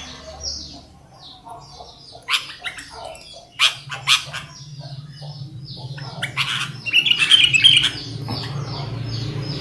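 Caged kutilang (sooty-headed bulbuls) calling in short chirps and squawks. There are a few sharp knocks in the middle, and the chirping grows busier about seven seconds in.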